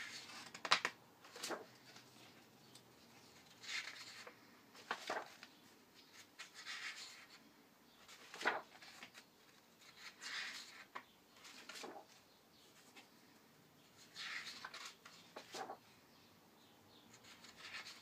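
Paper pages of a large hardcover picture book being turned one after another: a soft swish of paper as each page sweeps over, with light taps and slaps as pages are handled and land, several times over.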